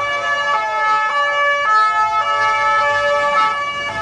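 Two-tone emergency vehicle siren, the French 'pin-pon' type, alternating between a high and a low note about every half second. A fainter tone glides downward in pitch during the first couple of seconds.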